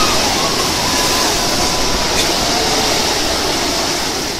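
Sea surf breaking and washing over rocks: a steady, dense rush of water noise.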